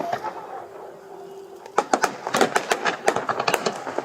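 Fireworks going off in rapid, irregular cracks and pops. They thin out for about a second and a half, then start up again densely just before the middle.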